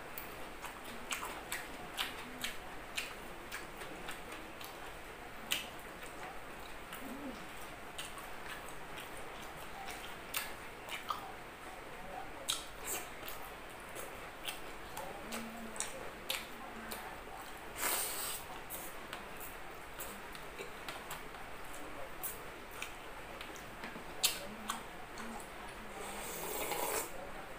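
Close-up eating sounds: chewing with frequent short wet mouth clicks and smacks. Near the end comes a longer sip of broth from a bowl.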